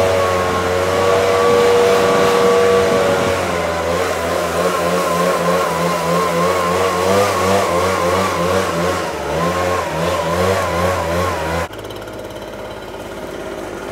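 Echo two-stroke backpack leaf blower running at high throttle. Its engine pitch holds steady at first, then wavers up and down as the throttle is worked. The sound drops off sharply near the end.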